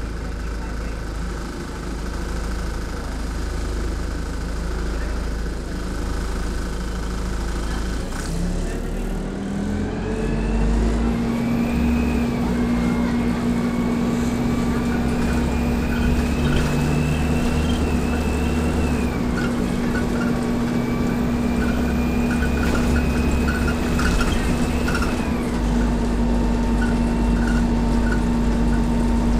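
Inside an ADL Dart single-deck bus: low engine rumble while it stands, then the bus pulls away about eight seconds in. A transmission whine rises with road speed and drops back twice as it shifts up.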